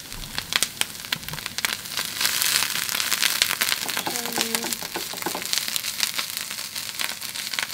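Riced cauliflower frying in hot oil in a skillet: a steady sizzle thick with small, irregular crackles and pops as it is stirred.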